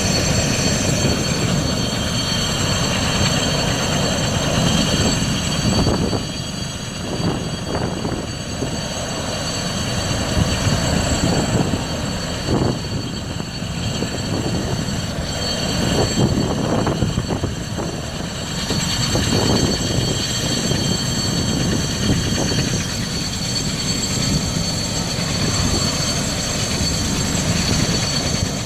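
Large transport helicopter running at the start of its take-off: steady high turbine whine over a dense, fast rotor thump.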